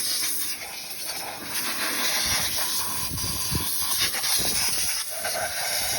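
Steady hiss of rushing air from car wash cleaning equipment, rising and easing a little in strength.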